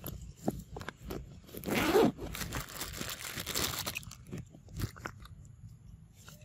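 Dry leaf litter and twigs crunching and rustling in a run of sharp crackles, loudest about two seconds in.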